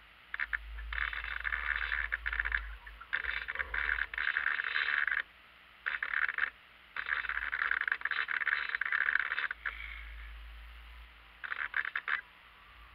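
Onboard radio-control servos of a model yacht, such as the sail winch trimming the sheets, buzzing in several short runs that start and stop abruptly, with faint hiss between them.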